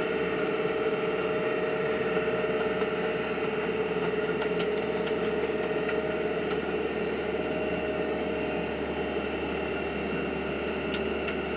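A dive boat's engine running steadily as the boat motors along, a constant drone with a few fixed tones.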